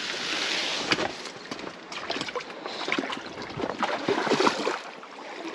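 River water sloshing and splashing in irregular bursts close by.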